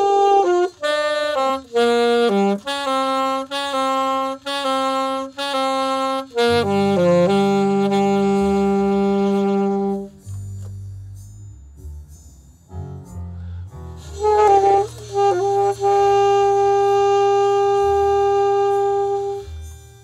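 Alto saxophone playing a melody over a low backing accompaniment. First comes a run of short, repeated notes, then a long held note. After a pause of a few seconds it plays another short phrase that ends in a second long held note.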